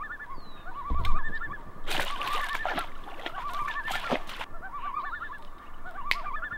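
Common loons giving repeated wavering tremolo calls, several overlapping. A dog snorting and rustling close by covers them from about two to four and a half seconds in, and there is a low thump about a second in.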